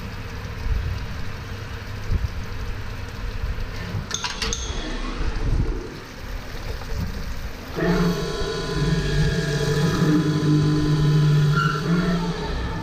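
Automatic drilling and chamfering machine running its cycle on a valve lifter: a steady motor hum, a sharp click about four seconds in, then from about eight seconds a louder steady whine of several tones as a spindle drills, stopping near the end.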